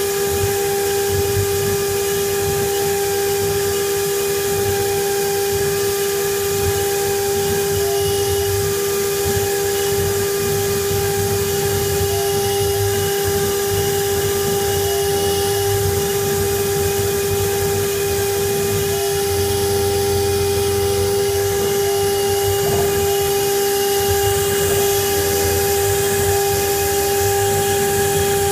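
Water-cooled CNC router spindle running at a steady high whine while a fine engraving bit carves a relief into wood, with a constant hiss of cutting and air.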